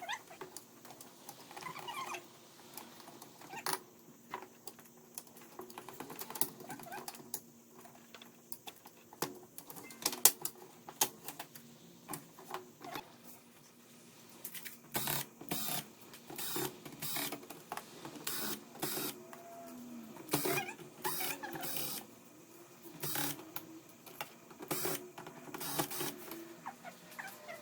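Irregular clicks, taps and knocks of tools, screws and circuit boards being handled, coming thicker and louder in the second half, over a faint steady hum.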